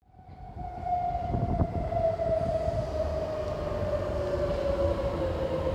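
Kawasaki–CRRC Sifang C151C metro train pulling into a station, its traction motors whining in a tone that falls steadily as the train brakes, over a low rumble of wheels on the rails. A couple of short knocks come about a second and a half in.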